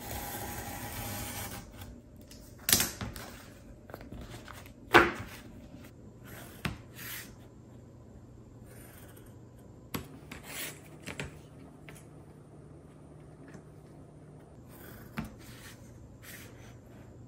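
Scraping on cardboard for about the first two seconds, then two sharp knocks about three and five seconds in. After that come scattered light taps and faint pencil scratching on cardboard against a small metal ruler.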